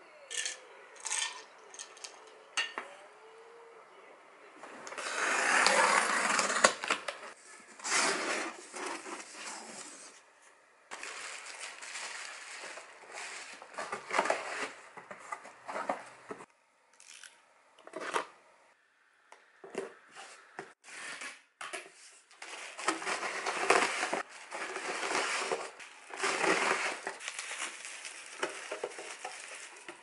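A few light clinks of a metal fork on a ceramic plate, then repeated rustling and crinkling of bubble wrap and cardboard boxes being handled while packing, coming in bursts with short pauses.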